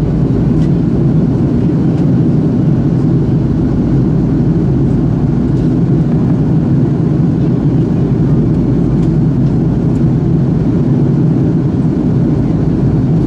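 Steady cabin drone of an Airbus A330-200 in flight, heard from a window seat by the wing: engine and airflow noise, deep and unchanging.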